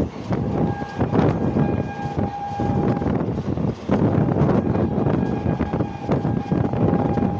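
Train running on the track: a loud rumbling clatter with many sharp clicks from the wheels, and a thin steady high tone that comes and goes.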